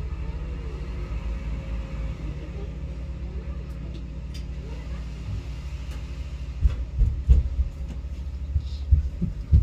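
Dump truck's diesel engine running with a steady low rumble while its hydraulic hoist tips the loaded bed into an asphalt paver. About two-thirds of the way through, a run of loud heavy thuds and knocks comes in.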